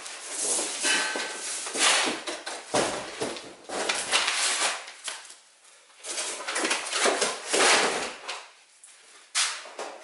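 Handling noises of a sheet-steel wheel arch repair panel being moved about on a wooden workbench: irregular rustling and scraping with a few dull knocks, the strongest about two to three seconds in and again near eight seconds.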